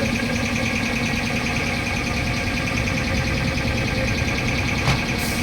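Steady mechanical drone holding one even pitch, with a short sharp tick near the end.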